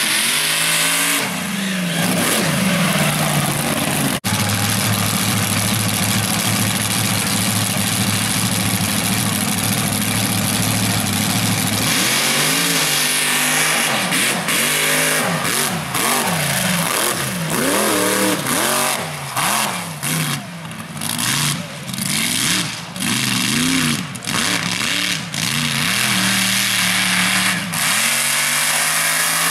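Mud-racing buggy's engine at full throttle through the mud, held at high, steady revs for several seconds, then revving up and down in rapid rises and falls as the throttle is worked.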